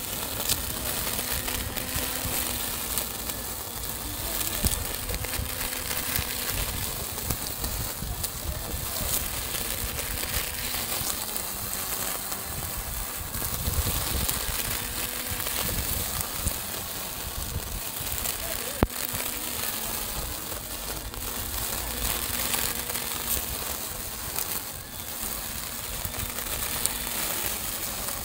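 Small handheld grass trimmer running steadily with a wavering hum while its spinning head cuts through tall grass with a hissing, crackling sound, with an occasional sharp tick as it strikes stems.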